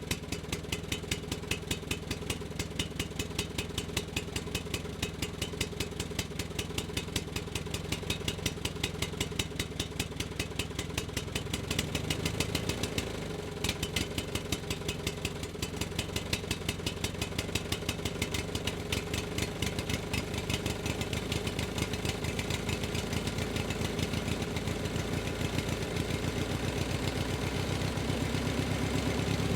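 Engine idling with a steady clattering beat, about two pulses a second. It shifts briefly about halfway through and grows louder near the end.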